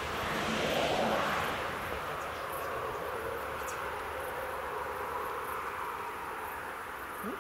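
Outdoor ambience at a closed level crossing: crickets chirping over a steady distant rumble that swells briefly about a second in.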